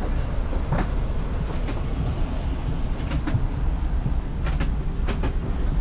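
Steady low rumble of background noise inside an Airbus A380 cabin, with several light clicks scattered through it.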